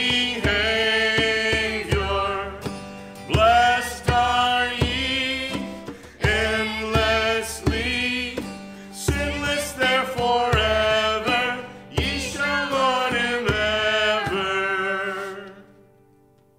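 A small group sings a hymn with acoustic guitar and hand-drum accompaniment, the drum striking in a steady beat. The last phrase is held and dies away about a second before the end.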